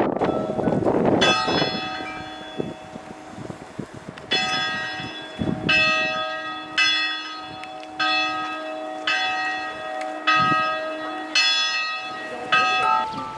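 Convent church bell tolling: struck about nine times, roughly a second apart from about four seconds in, each stroke ringing on into the next.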